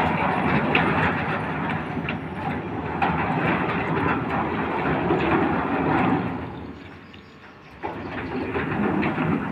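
Hollow-steel folding sliding gate running on its wheels along a curved steel rail: a continuous rolling clatter with scattered clicks, easing off about two-thirds of the way through and starting again abruptly near the end.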